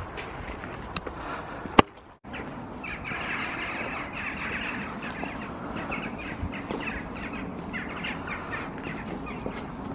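Birds chirping and calling outdoors, many short repeated notes from about three seconds in, over a low background hiss. A single sharp click comes just before two seconds in, followed by a brief dropout.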